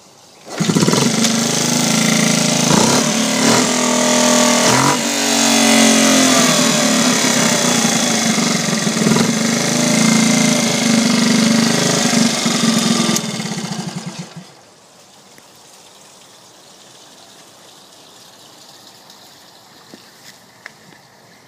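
Honda C50's small single-cylinder four-stroke engine starting about half a second in, rising and falling in pitch a few seconds in, then running steadily before stopping about fourteen seconds in.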